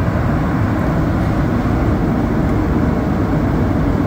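Azur (MPM-10) rubber-tyred metro train running through a tunnel, heard from inside the car: a loud, steady rumble.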